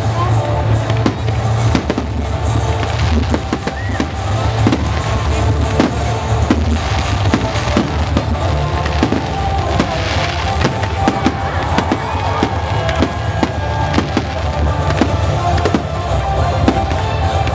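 Fireworks display: a rapid, continuous salvo of shell bursts, many sharp bangs and crackles a second, with music playing underneath.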